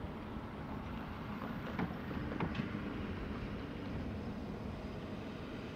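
A pickup truck and a car driving across a railroad grade crossing, with a couple of short knocks about two seconds in as tyres go over the rails. A steady low rumble of wind on the microphone lies under it.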